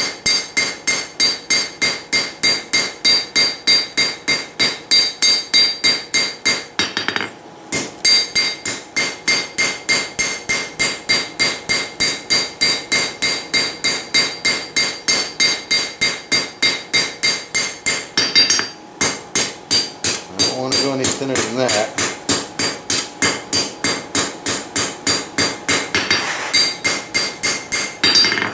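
Hand hammer striking a hot railroad-spike froe blade held on edge on an anvil, about three blows a second, each blow ringing from the anvil; the smith is drawing out and squaring the blade's edge. The hammering breaks off briefly twice.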